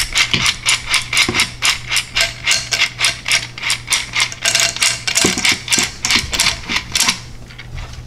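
Battery-powered Minnie Mouse toy hand mixer running in a plastic bowl. Its beaters turn with a fast, even clicking of about four clicks a second, with a few light knocks of the toy against the bowl, and it stops about seven seconds in.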